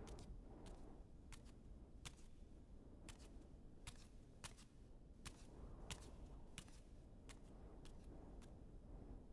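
Near-silent street with one person's footsteps on pavement: sharp, clicking steps at a walking pace, about three every two seconds, over a faint low hiss.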